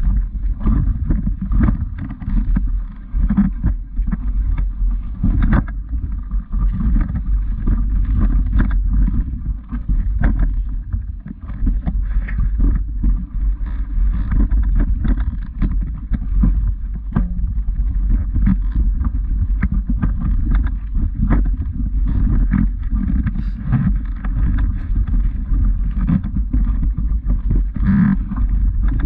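Low, steady rumble of wind and handling noise on the microphone of a camera carried along a walking path, with irregular knocks and taps through it.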